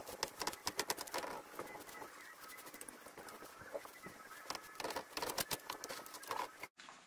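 Wire brush scrubbing rusty pistons and connecting rods under pickling vinegar: fast, scratchy scraping of bristles on metal with the liquid sloshing, in quick runs of strokes. It cuts off suddenly near the end.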